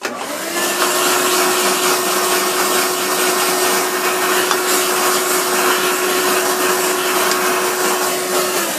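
Small handheld power tool spinning against the metal control sheave of a Shopsmith Mark V to clean it: a steady motor hum under a loud scrubbing hiss, spinning up at the start and switched off near the end.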